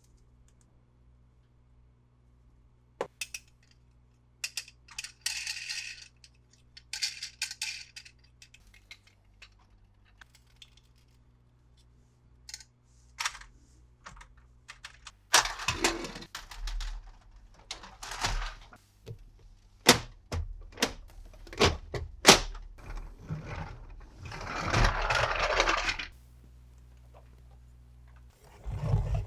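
Hands handling plastic toy vehicles and their packaging: scattered clicks, taps and rattles, with short bursts of crinkling packaging.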